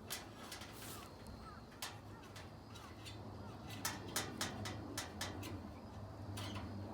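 Irregular sharp knocks and taps, about a dozen, with a quick cluster past the middle, over a steady low hum. A few small bird chirps are heard between them.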